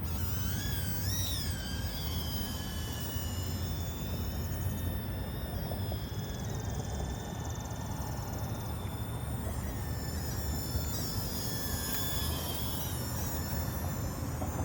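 Mini toy quadcopter drone in flight, its small motors giving a thin high whine that rises and falls in pitch as it manoeuvres, over a steady low rumble.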